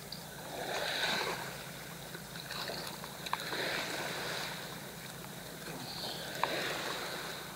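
Small waves washing against the riverbank, rising and falling in three slow swells, with a few faint clicks.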